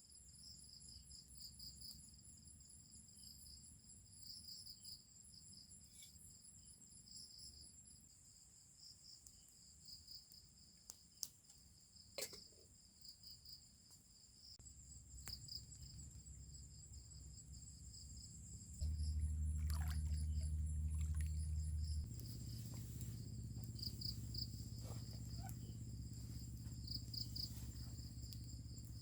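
Night insects chirping in a steady chorus of several high, pulsing trills. A couple of sharp clicks come in the middle, and a low rumble builds in the second half and is loudest for a few seconds past the midpoint.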